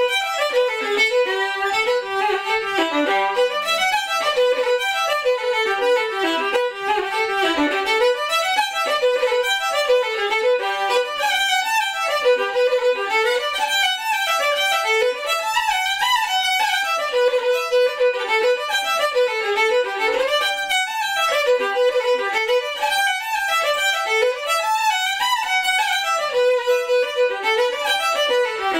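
Solo fiddle playing a traditional Irish tune at a lively pace: a continuous stream of quick notes running up and down in repeating phrases.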